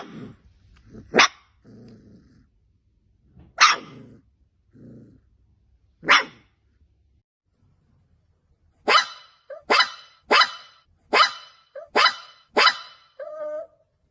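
Puppies barking: sharp single barks a few seconds apart with low growls between, then a quick run of six barks about half a second apart, ending in a short whine.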